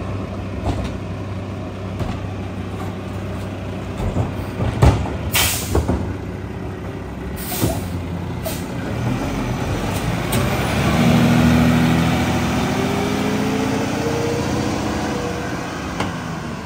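Mack garbage truck's diesel engine running, with sharp air-brake hisses about five seconds in and again twice shortly after as the truck moves off. In the second half the engine revs up, its pitch rising steadily for a few seconds before settling.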